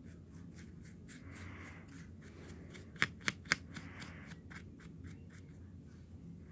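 Paintbrush rubbing paint onto a plastic paint palette in soft scrubbing strokes, with three sharp clicks in quick succession about three seconds in.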